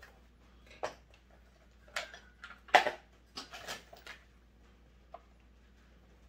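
Metal hand tools clinking and clattering as they are handled on a workbench: about half a dozen sharp knocks and clicks, the loudest about three seconds in.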